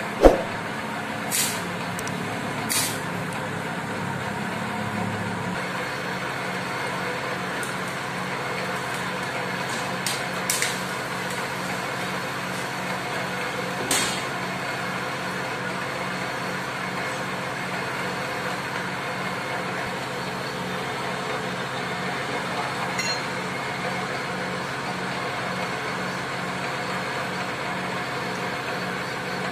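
Metal lathe running steadily, its spindle and drive giving a constant mechanical drone with a low, regular pulse. A few sharp clicks sound over it, the loudest just after the start.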